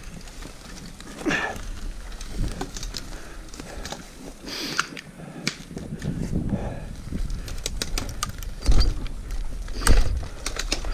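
Electric dirt bike ridden slowly through brush and deadfall, with a string of sharp clicks, snaps and scrapes as branches and twigs break and drag against the bike and rider. Two heavy thumps near the end, as the bike knocks over obstacles.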